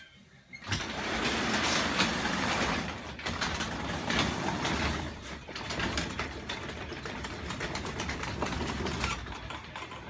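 Garage door opener running with the door travelling along its track, a steady mechanical rattle that starts suddenly about half a second in.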